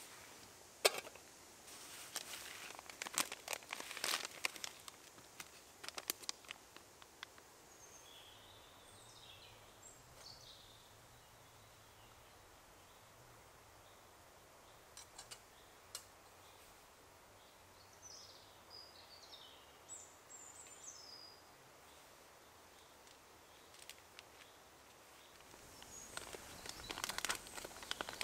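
Scattered clicks and rustles of hands handling cooking gear, with a songbird chirping faintly twice in the middle. Near the end comes the crinkling of a food packet being opened.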